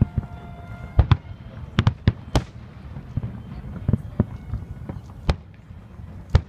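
Aerial fireworks shells bursting: about ten sharp bangs at irregular intervals over a steady low rumble.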